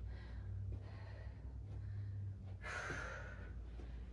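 A woman breathing hard and fast during exercise, heavy exhales about once a second, with a louder gasping breath about three seconds in. A steady low hum runs underneath.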